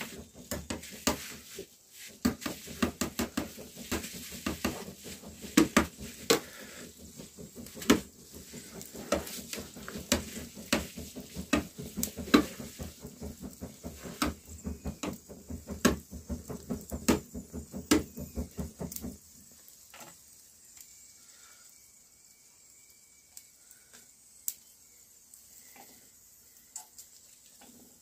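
Rapid, irregular clinking and knocking of utensils against kitchenware, as in stirring or handling food while cooking. It stops abruptly about two-thirds of the way through, leaving only a few faint clicks.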